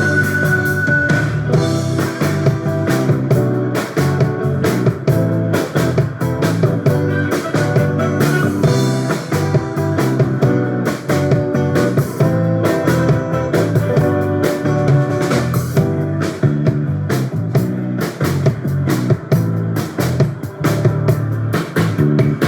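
Live band playing a song at a soundcheck, with a steady drum-kit beat and guitar.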